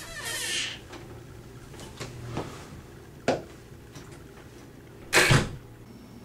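Interior door opened by its doorknob: a brushing swish as it swings open, then a few sharp clicks, and a louder thump a little after five seconds in.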